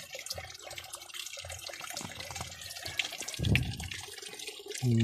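Water in a koi fry tank splashing and trickling in an irregular patter of small drips and splashes, with a louder slosh about three and a half seconds in.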